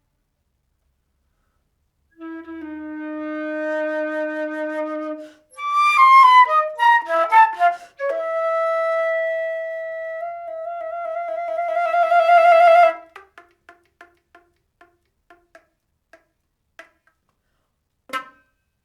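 Solo concert flute playing contemporary music. After a short silence a long low note swells, then a quick run of notes, then a long higher note that steps up once and grows louder before cutting off sharply. Short detached notes follow, more and more sparse, and a single sharp accented note sounds near the end.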